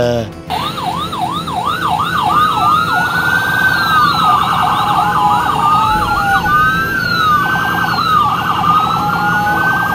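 Several electronic sirens sounding together, as from emergency vehicles arriving: quick repeated yelps, slower rising and falling wails, and bursts of rapid warble overlap.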